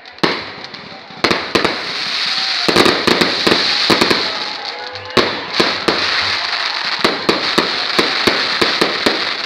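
Aerial fireworks going off in a dense barrage: a sharp bang just after the start, then from about a second in a rapid run of bangs, several a second, over a continuous crackle.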